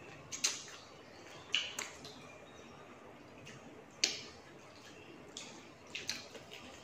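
Two people eating fried chicken wings: about five short, sharp lip smacks and chewing clicks, spaced a second or more apart.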